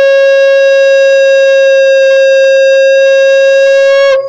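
Conch shell (shankha) blown in one long, steady, loud note, which dips slightly in pitch and breaks off near the end. It is sounded during the aarti of the puja.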